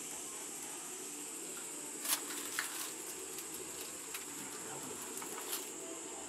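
Insects droning steadily at a high pitch, with a low steady rumble beneath and a couple of brief knocks about two seconds in.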